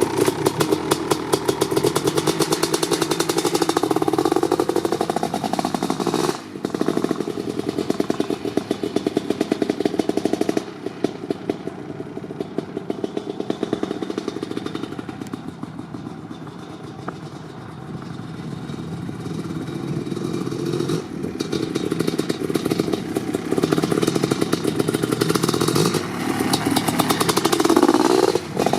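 1988 Kawasaki KX500's single-cylinder two-stroke engine, fitted with an FMF Fatty expansion chamber and DEP silencer, running while it warms up from a cold start. It blips up and down at first, settles to a lower, quieter idle in the middle, then the revs rise again near the end.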